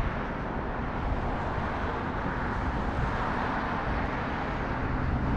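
Steady outdoor rushing noise with a low rumble underneath, without any distinct event.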